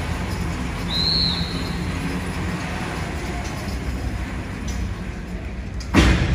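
Engine of the horse-pull dynamometer truck running steadily under the team's pull, with a short high squeal about a second in. A loud sharp thud comes near the end.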